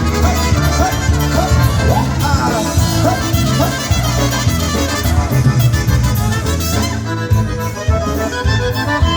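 Live polka band playing an instrumental passage led by accordion over a steady bass and drum beat.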